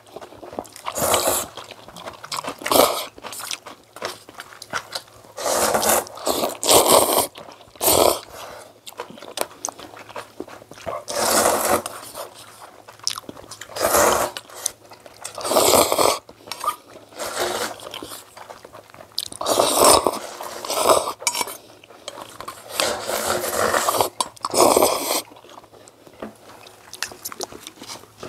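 A person eating maesaengi and oyster noodle soup up close: about a dozen loud, irregular bursts of slurping and chewing, with quieter pauses between.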